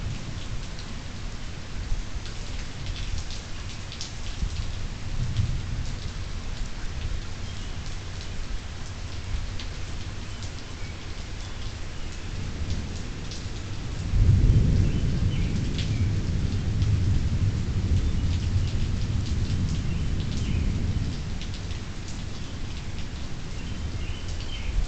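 Steady rain falling, with scattered drops ticking close by. About halfway through, a long low rumble of thunder starts suddenly, the loudest sound here, and rolls on for about seven seconds before easing back to the rain.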